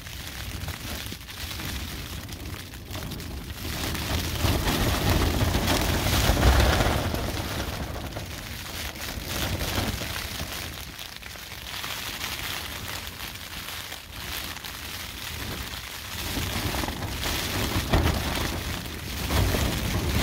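Strong wind gusts buffeting a Durston X-Mid 2P trekking-pole tent, heard from inside as the fly fabric flaps and shudders. The gusts swell hardest about five to seven seconds in and again near the end, with heavy low wind rumble on the microphone.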